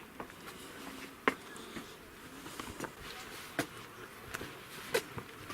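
Faint buzzing of flying insects, with a few scattered sharp clicks of shoes on the rock steps during a climb.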